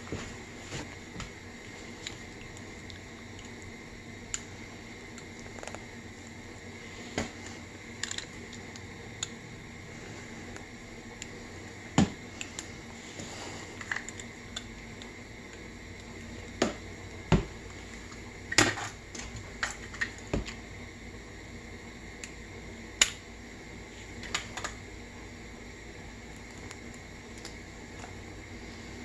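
Scattered clicks, taps and knocks of hand tools and small parts being handled on a workbench, over a steady background hum; the sharpest knocks come about twelve seconds in and in a cluster a few seconds later.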